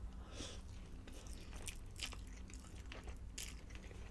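Faint chewing of soft pasta, with scattered small mouth clicks and smacks.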